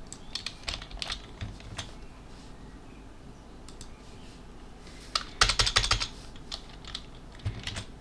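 Typing on a computer keyboard: scattered keystrokes with a quick burst of rapid typing about halfway through.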